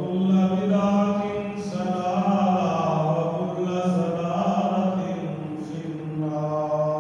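A man chanting a melodic religious recitation into a microphone, holding long drawn-out notes in one continuous flowing line.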